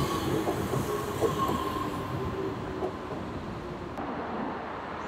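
Kobe Municipal Subway train running away along the track, its wheels rumbling and clicking over the rails with a faint squeal, slowly fading. About four seconds in the sound cuts to quieter background.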